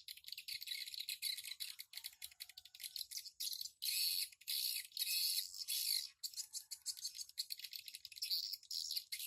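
Edible-nest swiftlets twittering: rapid, high, rattling trills in bursts of about a second, one after another.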